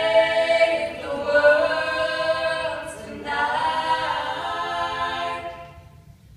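Mixed a cappella choir singing sustained chords into hand-held microphones, in two phrases with a brief break about halfway. The second phrase dies away near the end.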